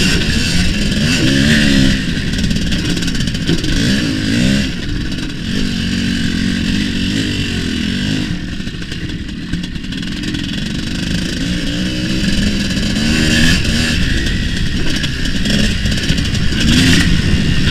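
Tuned single-cylinder two-stroke engine of an IZh Planeta-based cross-enduro motorcycle with an expansion-chamber exhaust, revving hard and easing off again and again as it is ridden, its pitch climbing and dropping repeatedly.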